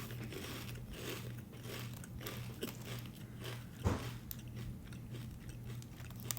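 A person chewing crunchy Funyuns corn-ring snacks: irregular crisp crunches, with one louder bite about four seconds in, over a steady low hum.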